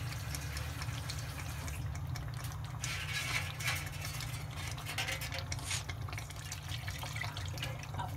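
Thick tomato curry gravy sizzling and bubbling in a pan while a spatula stirs and scrapes through it, with a steady low hum underneath. Liquid pours into the pan near the end.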